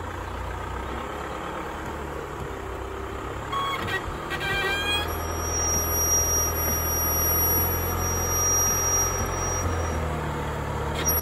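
Land Rover Defender 110 crawling at low revs over a log bridge, its engine a steady low hum that picks up a little about halfway through. A short run of squeaks from the chassis comes about four seconds in as the suspension articulates; the squeaking may be worse after wading through water.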